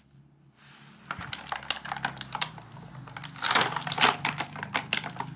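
Rapid clicking and rattling of plastic toy parts and packaging being handled, faint at first and loudest a little past the middle.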